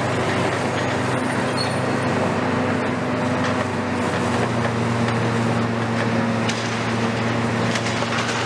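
Diesel engines of heavy tracked excavators running steadily, with a low hum that gets stronger and slightly higher about four seconds in.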